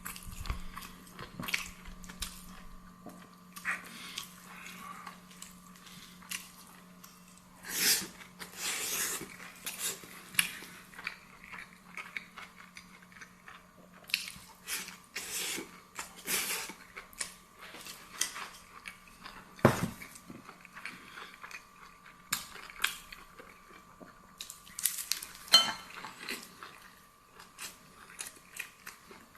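Mouth-close eating sounds: chewing and biting, with scattered clicks of utensils against dishes, over a faint steady hum.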